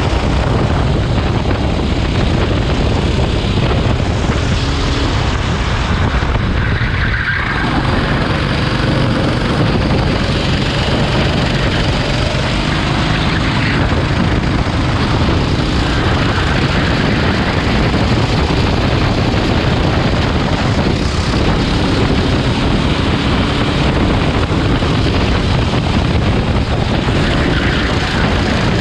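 Rental go-kart engine running at racing pace, its pitch rising and falling as the revs change through the corners, under a heavy, steady rush of noise.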